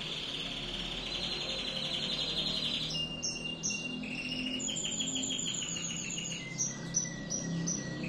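Male Timbrado canary singing a run of distinct phrases. A fast trill gives way to held steady notes with short high chirps over them. Then comes a quick series of repeated notes, about six a second, and finally a low held note broken by high chirps.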